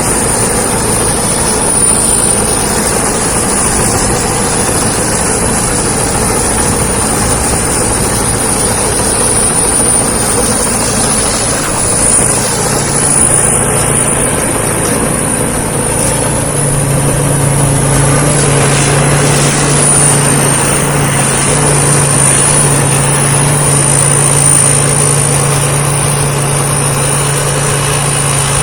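Thai Seng rice combine harvester running steadily as it harvests, with a high thin whine throughout and a deeper hum that grows stronger about halfway through.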